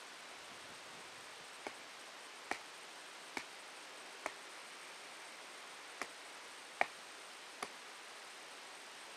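A wooden stake struck on its top by hand to drive it into the ground: seven sharp taps, four in a row under a second apart, a pause, then three more.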